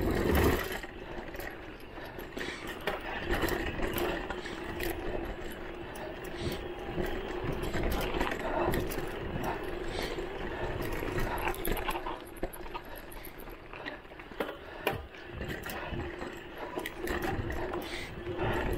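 Voltbike Enduro e-bike's electric motor whining at a steady pitch under pedal assist, with rattles and knocks from the bike jolting over bumpy single track. A heavy thump comes right at the start.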